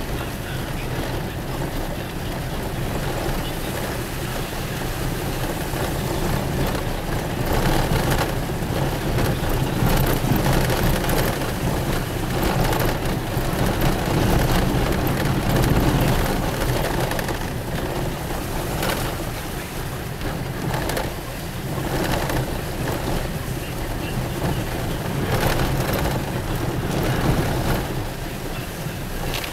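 Car driving on a wet, rough road, heard from inside the cabin: steady engine and tyre noise with a low hum, and a few sharp knocks as the car jolts over the bumps.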